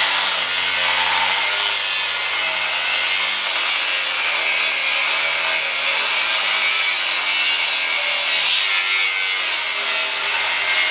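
Angle grinder grinding steel, a steady rasping noise with a high, thin whine that wavers up and down as the disc bears on the work.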